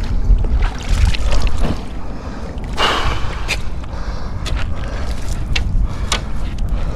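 Wind buffeting the microphone as a low rumble, with a brief rush of noise about three seconds in and a few sharp clicks of handling later on.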